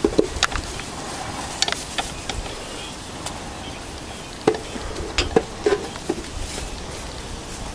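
Scattered short, sharp clicks and light rustles, about ten of them, over a steady low rumble, with no goat calls.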